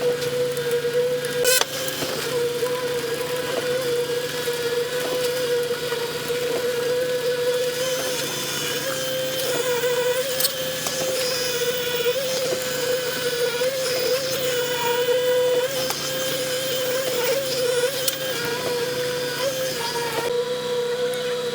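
A machine's engine or motor running steadily with a constant hum, with a short click about one and a half seconds in.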